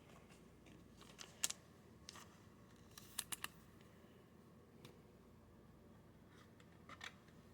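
Near silence with a few faint, short clicks and taps of trading cards being handled, including a quick run of three about three seconds in.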